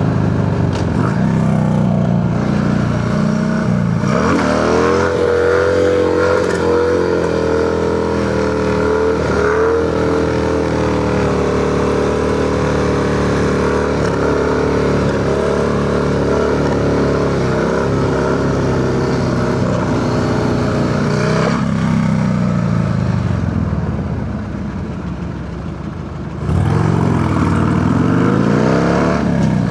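Harley-Davidson Sportster V-twin running through a Cobra El Diablo 2-into-1 exhaust while riding. The engine pulls up in pitch about four seconds in and then holds a steady cruise. Near the end it drops off quieter for a couple of seconds, then comes back on hard and climbs again.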